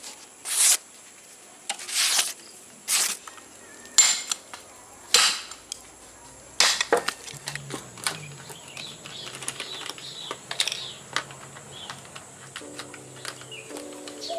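Sharp golok chopper blade slicing through paper, a short crisp swish about once a second for the first seven seconds or so, then quieter clinks of metal tools being handled.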